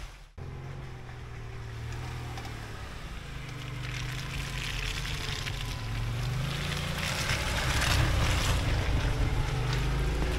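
Lada Niva 4x4's 1.7-litre four-cylinder petrol engine running under load, its revs rising and falling as it drives through wet mud and slush, with tyres hissing through the slush. It cuts out briefly just after the start, then grows steadily louder as the car comes closer.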